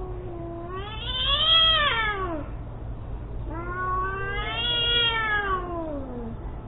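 Domestic cats caterwauling in a fight standoff: long drawn-out yowls that rise and then fall in pitch, two of them, each lasting about two to three seconds, over a low steady hum.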